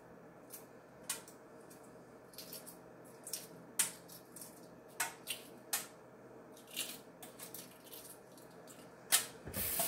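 Shell of a hard-boiled egg crackling and being picked off by hand, in a string of irregular small cracks and clicks. Near the end a kitchen faucet is turned on and runs into a stainless steel sink.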